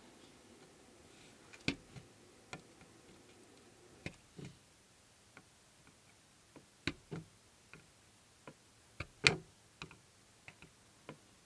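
A sharp metal pick pricking holes in the aluminium can tops of SMD electrolytic capacitors: a series of small, sharp clicks at irregular intervals, some in quick pairs, the loudest about nine seconds in.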